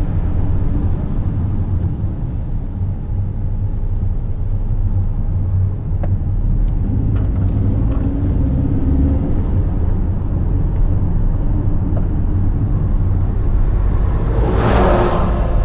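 Steady low rumble of a car's engine and tyres heard from inside the cabin while driving. Near the end an oncoming truck passes close by with a brief rush of noise.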